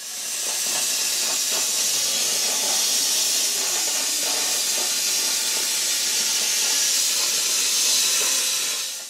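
R-Tech CNC plasma cutter torch cutting through 5 mm steel plate: a loud, steady hiss that fades in at the start and out at the end.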